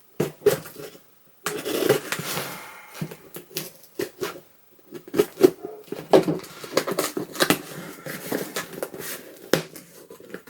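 A mailing package being handled and opened by hand: irregular rustling, crinkling and scraping with sharp clicks.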